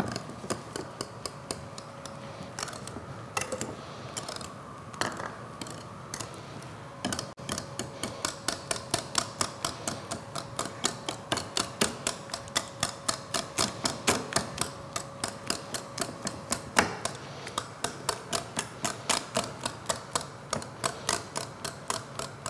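Metal wire whisk beating a thick cream mixture in a ceramic bowl, its wires clicking against the bowl. The strokes are uneven at first, then settle into a steady rhythm of about three clicks a second.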